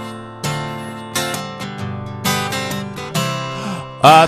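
Acoustic guitar strummed on its own, each chord ringing out and fading before the next stroke; a man's singing voice comes back in near the end.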